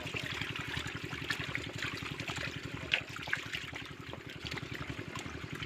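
A small engine running steadily with a fast, even beat, over trickling, splashing water.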